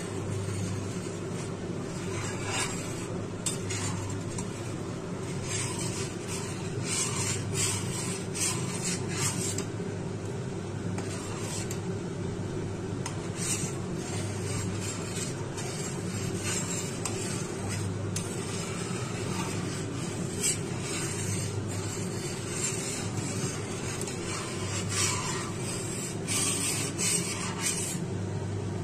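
Metal spatula stirring and scraping across the bottom of a stainless steel pan of boiling, frothing milk in repeated irregular strokes, over a steady low hum. The milk is being boiled down on high flame to make khoa.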